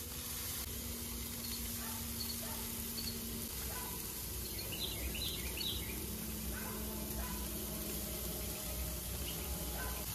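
Raw burger patties and bacon strips sizzling steadily on a hot gas grill, with a low rumble underneath. A bird chirps a few times about halfway through.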